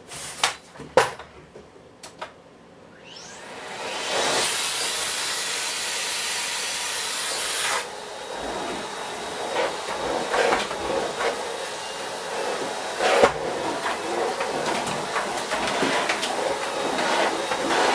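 Miele S8 cylinder vacuum cleaner switched on about three seconds in, its motor spinning up to a steady rush of air. About eight seconds in the sound drops, and the floor head knocks and rubs as it is pushed back and forth over the floor mats. This is a test run after reassembly, and the machine is running normally.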